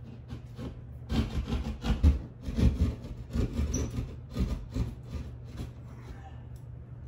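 A hand drywall saw cutting a round hole in a ceiling's drywall, in a run of short back-and-forth sawing strokes, about two to three a second. The strokes start about a second in and stop near the end.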